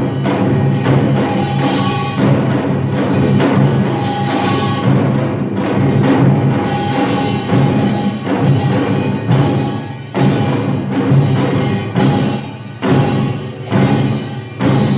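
Samulnori ensemble playing Korean percussion: kkwaenggwari small gongs, jing gong, janggu and buk drums, struck in a fast, dense rhythm with ringing metal tones over the drumming.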